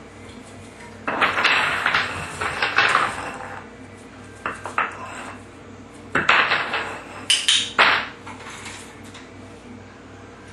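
A puppy's training dumbbell clattering and knocking on a tile floor in three bunches of rapid hits, with pauses between.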